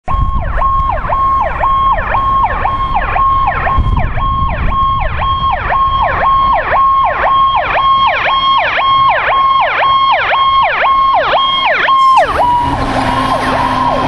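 Fire engine's Powercall electronic siren: a steady high tone broken about twice a second by a quick dip in pitch and back. About twelve seconds in the dipping pattern stops and a harsher, noisier sound with steadier lower tones takes over.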